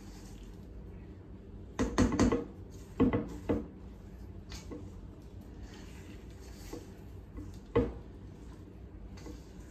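Spoon knocking and scraping against a stainless steel mixing bowl as stiff chocolate chip cookie dough is folded. There is a cluster of knocks about two seconds in, another about three seconds in, and a single knock near the end, with soft stirring between.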